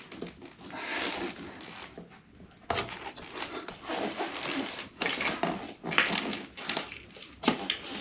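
Steel tire lever prying the bead of a 10-inch tubeless scooter tire up on its rim: scattered clicks, scrapes and a few sharper knocks of metal against the rim and rubber while the bead is worked into place to seal.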